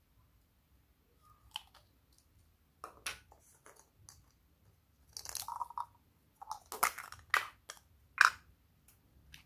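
Small plastic containers and caps being handled: scattered clicks and crinkly crunching, with the loudest sharp click just after eight seconds in as the cap comes off a small plastic tube.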